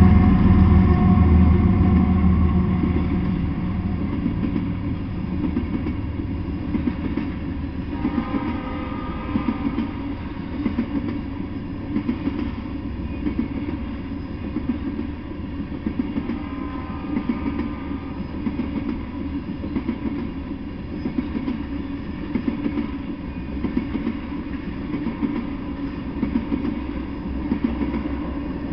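Freight train of tank cars rolling past, a steady rumble with wheels clacking over the rail joints. A louder low rumble in the first few seconds eases off.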